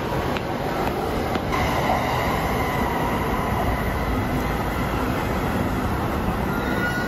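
Electric commuter train running at a station platform: a steady rumble of wheels on the track, with a faint high whine coming in about a second and a half in.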